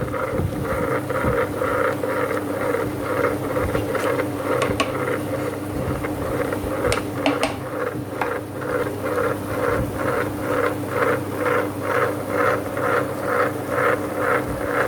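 Meenakshi 2-litre tabletop wet grinder running, its stone rollers churning soaked rice and dal into adai batter with a steady hum and an even rhythmic swish about three times a second. A few sharp clicks come around four and seven seconds in.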